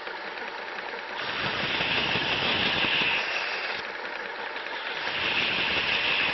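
WorkSharp 3000 sharpener running with its coarse abrasive belt, a knife blade drawn slowly through the guide against the belt twice; each pass is a grinding hiss lasting a couple of seconds over the steady hum of the motor.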